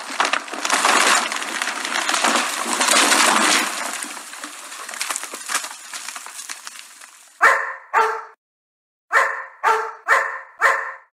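Dense crackling noise that fades away over about seven seconds, then a dog barks six times: two barks, a short pause, then four quick barks.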